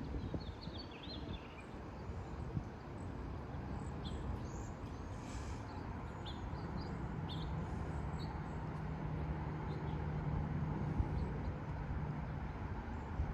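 Small birds chirping on and off over a steady low rumble of light wind. A low steady hum comes in about halfway through and fades near the end.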